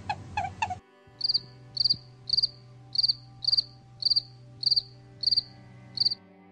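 Insect chirping: a short, high, fast-pulsed chirp repeated evenly about twice a second, nine times. It follows a couple of short falling animal calls right at the start.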